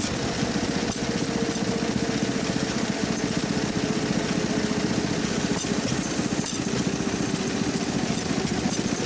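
Small engine of a motorized rail rider running steadily under way along the track, a rapid even putter.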